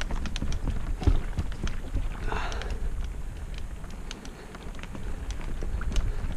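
Mountain bike ridden along a dirt trail: low rolling rumble from tyres and ground, with frequent clicks, knocks and rattles from the bike.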